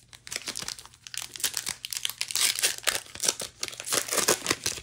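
A Magic: The Gathering collector booster pack's foil wrapper being torn open and crumpled: a dense run of crinkling crackles, loudest in two spells around the middle and near the end.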